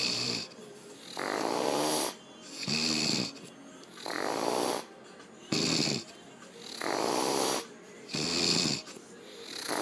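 A woman snoring in a steady rhythm. A rasping, rattling snore alternates with a shorter, lower, more tonal one, about one pair every three seconds.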